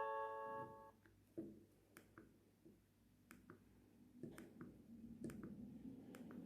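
A Nokia 6030 ringtone from the phone's speaker stops, its last notes dying away within the first second. After that, faint scattered clicks sound over near silence.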